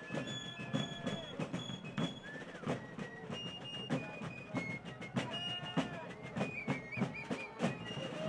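Fife and drum corps playing a march: shrill fife notes over a steady beat of field drums.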